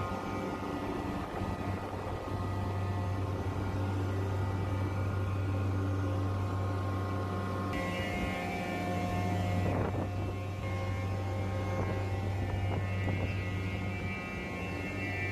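York variable-speed-drive screw chiller running: a steady low machine hum with many fixed tones above it. A higher whine comes in about halfway through.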